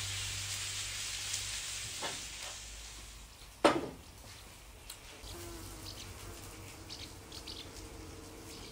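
Meat sizzling on a barbecue grill, a steady hiss that slowly fades over the first three seconds. A single sharp knock follows, then only faint small clicks.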